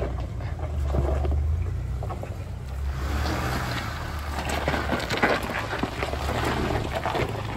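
A Chevrolet Colorado ZR2 pickup drives slowly past over a dirt and gravel trail. Its engine runs low, and from about three seconds in its tyres crunch and pop over gravel and stones as it comes close.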